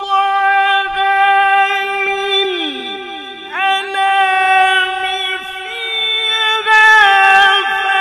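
Amplified male Quran recitation (tilawat): a qari holds long, high melodic notes with small ornamental turns. The voice falls away about two and a half seconds in, comes back a second later, and steps up in pitch past the middle.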